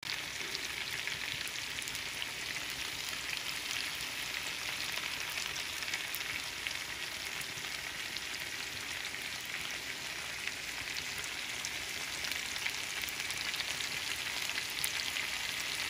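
Chicken drumsticks in a spiced, oily sauce sizzling steadily in an electric skillet, with a fine crackle of spitting fat.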